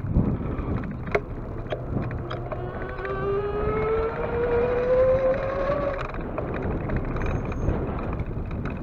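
A vehicle engine accelerating, its pitch climbing steadily for about three seconds from about three seconds in, then fading, over a constant low rumble of wind on the microphone. A few sharp clicks sound in the first two seconds.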